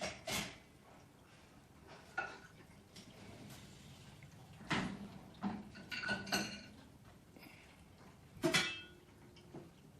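Unboxed parts being handled on a desk: a series of light knocks and metallic clinks, some ringing briefly, the loudest about 8.5 seconds in.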